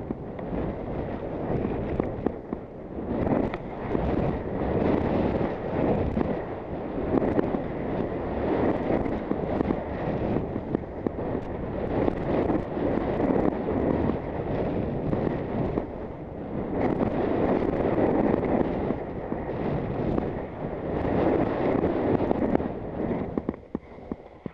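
Skis scraping and hissing over snow through a series of turns, mixed with wind rushing over the helmet-mounted camera's microphone. The noise swells and eases every few seconds and drops away near the end.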